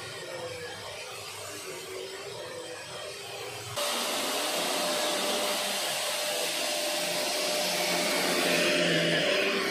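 Corded stick vacuum cleaner running over artificial grass: a steady motor whine with a rushing hiss of air. It is fainter for the first few seconds, then jumps much louder about four seconds in.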